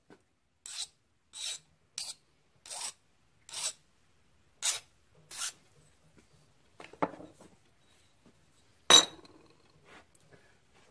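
Hand file drawn across a small metal plate, seven rasping strokes about one every 0.7 seconds. Then a knock and a loud clank as the file and part are set down on the wooden workbench.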